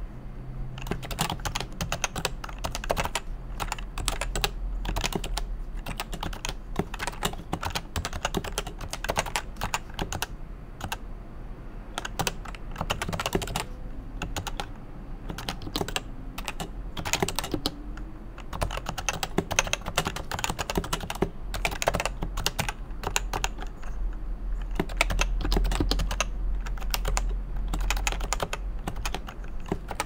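Continuous typing on a Topre REALFORCE R2 keyboard with non-silenced 45 g electrostatic capacitive switches: a dense run of key clacks, with a couple of brief pauses.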